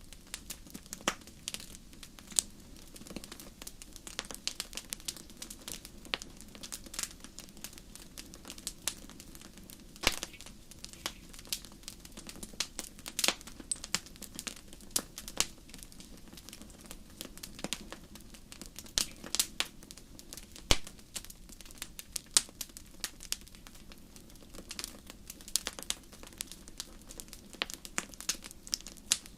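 Wood fire burning in a fireplace: irregular sharp crackles and pops, several a second, over a soft steady low noise of the flames.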